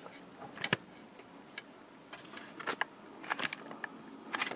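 Faint, scattered handling clicks and light rustle as a replacement flyback transformer is held and turned beside a television chassis wrapped in bubble wrap, a single click here and there and small clusters of two or three near the middle and end.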